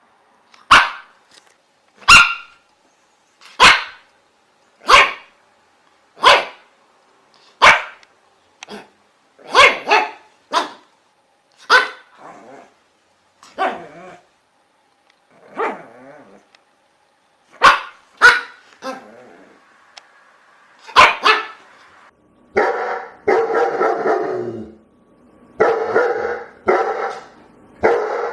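A dog barking: sharp single barks about a second and a half apart, then a few irregular barks. From about three-quarters of the way in come longer runs of rapid, tightly packed barking.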